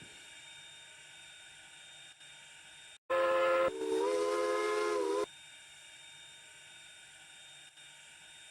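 Steam locomotive whistle giving two blasts, a short one about three seconds in and a longer one right after, each a chord of several tones. A faint steady hiss lies under and around them.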